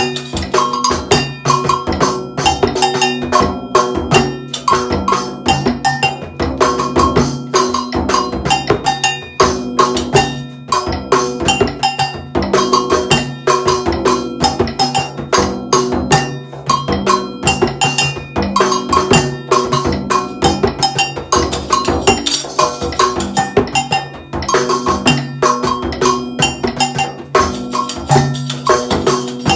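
Layered percussion playing a steady Brazilian rhythm: a tar frame drum keeping a low surdo pattern, two-toned agogo bells struck with a stick, and a tambourine melody.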